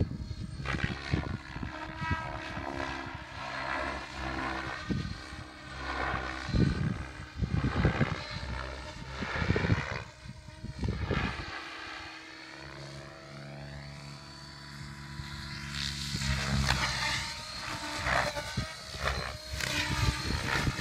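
Compass Chronos radio-controlled helicopter flying overhead, its rotor and motor pitch rising and falling in wavering sweeps as it manoeuvres.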